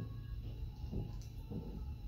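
Soft handling of plastic Lego pieces, two muffled knocks about a second and a second and a half in, over a low steady hum.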